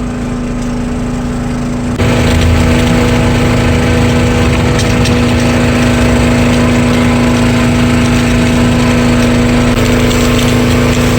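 Motorboat engine running steadily under way, a constant drone that turns abruptly louder and fuller about two seconds in.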